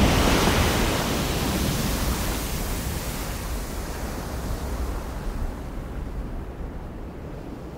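A strong gust of wind rushing in suddenly and slowly dying away over several seconds, above a steady deep rumble.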